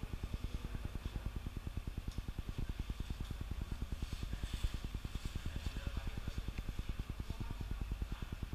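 Steady low mechanical throb, about seven even pulses a second, from a running motor or engine.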